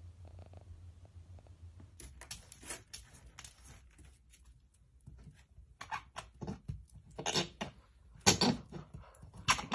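Golden retriever puppies pawing and mouthing at a glass door: an irregular run of scratches, squeaks and clicks against the glass that gets louder and busier near the end.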